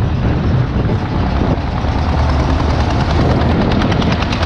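Wind buffeting the microphone of a moving motorcycle, with engine and road noise underneath.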